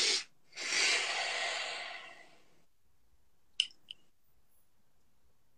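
A person's long sigh: the breath out fades away over about two seconds. Then come two short clicks about a third of a second apart.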